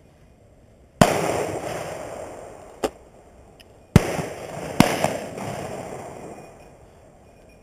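Shotgun shots: two loud bangs about three seconds apart, each trailing off over a couple of seconds, with quieter shots between and just after them.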